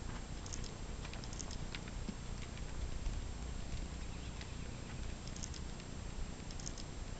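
Soft, muffled hoofbeats of a curly horse trotting on arena sand, over a steady low rumble, with a few faint high chirps.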